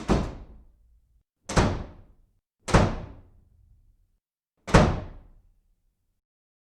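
Four heavy thuds, uneven gaps of one to two seconds between them, each dying away in about half a second.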